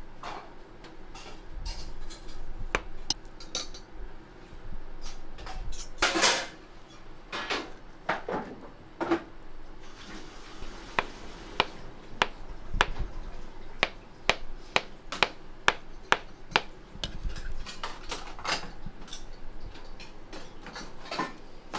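Kitchen utensils and dishes clinking and knocking in a run of irregular sharp taps, with a louder clatter about six seconds in and a quicker, more even run of taps later on.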